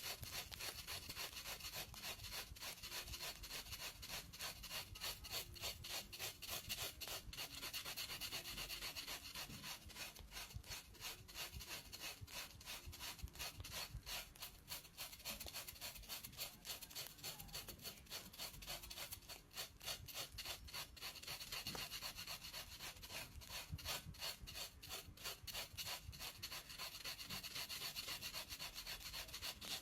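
Pedicure blade scraping dead, flaking skin off a foot with athlete's foot, in quick short strokes repeated several times a second.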